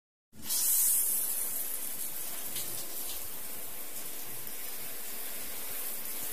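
Water running steadily, an even hiss that starts suddenly just after the beginning.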